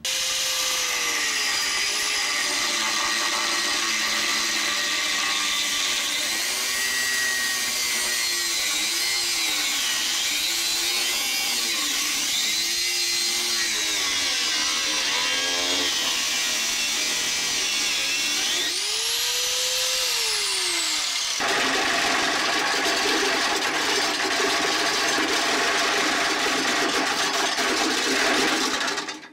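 Angle grinder with a cut-off wheel cutting through the truck's exhaust pipe, the motor's whine sagging and recovering again and again as the wheel bites. In the last third the cutting turns harsher and louder, and it stops abruptly at the end.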